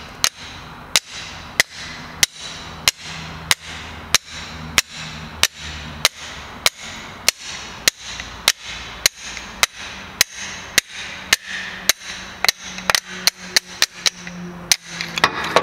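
Light hammer taps driving the piston (gudgeon) pin out of a piston to free the connecting rod, once the retaining circlip is off. The sharp metal taps come at an even pace of about one and a half a second, then quicken to about three a second near the end.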